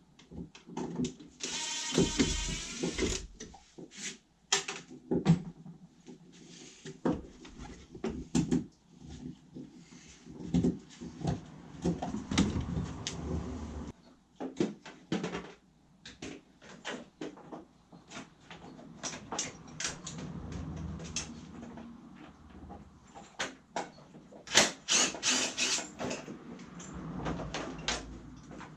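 Workshop clatter of a motorcycle's fairing being taken off: irregular clicks, knocks and clunks of hand tools, screws and plastic panels. There is a brief whir about two seconds in and a burst of sharp clatters near the end.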